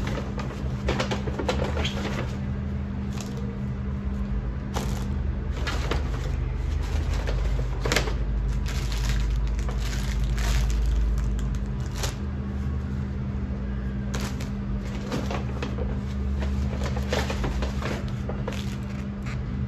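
Objects and packaging being handled, making a run of irregular clicks, knocks and rustles over a steady low hum.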